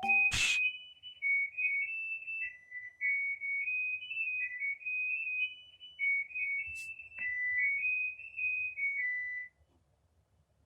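A high, whistle-like melody in a single pure tone, stepping up and down through short notes, with a sharp click just after it starts. It stops about nine and a half seconds in.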